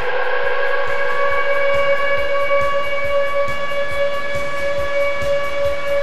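Ice hockey goal horn sounding one long, steady blast with several stacked pitches, over a fast, even beat of about four clicks a second.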